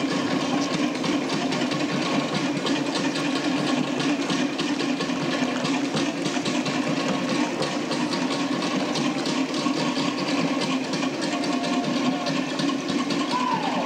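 Tahitian drum ensemble playing a fast, unbroken rhythm of rapid clattering strokes, typical of to'ere slit-log drums driving an 'ote'a dance. A brief falling call sounds near the end.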